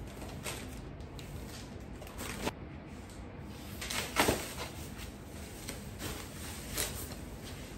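Plastic grocery bag rustling and crinkling as it is handled, in a few short bursts, the loudest about four seconds in.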